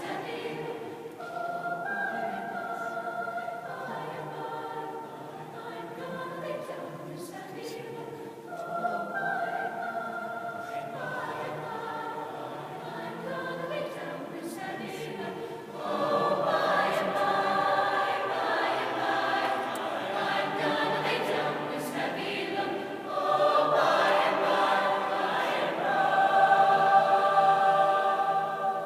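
High school symphonic choir singing held chords, swelling louder about halfway through and again near the end.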